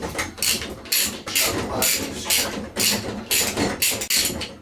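Ridgid ratcheting pipe cutter being worked around a pipe: a rhythmic run of rasping ratchet strokes, about two to three a second.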